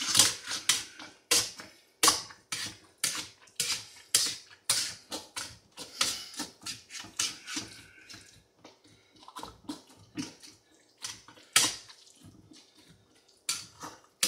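Potato masher pressing through thawed fruit chunks in a pot: repeated wet, squelching strokes, about two to three a second, which ease off for a few seconds past the middle and then pick up again.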